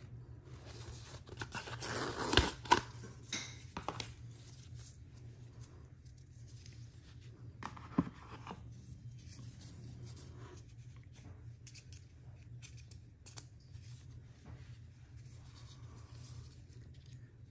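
Unboxing handling noise: a woven fabric watch band and its paper-card packaging rustle and scrape against each other, with two sharp clicks about two and a half seconds in. A single click comes about eight seconds in, then lighter handling ticks over a faint steady low hum.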